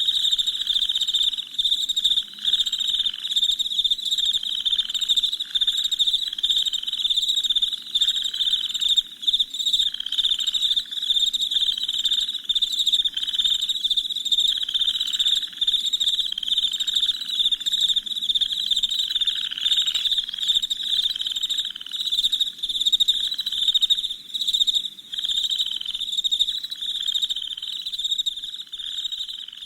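Crickets chirping in a dense, continuous night chorus of rapid high chirps, with a lower pulsing call repeating about once a second beneath them.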